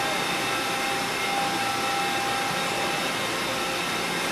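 Steady whir and hiss of a running Mazak Integrex 400-III ST CNC turning center and other shop machinery, with several steady high whining tones over the noise.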